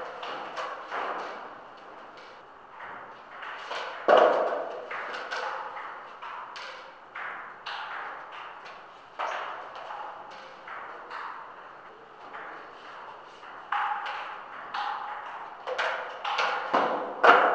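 Table tennis ball clicking back and forth off paddles and the table during a rally, each hit ringing on in an echoing bare room. Sharper, louder hits come about four seconds in and again near the end.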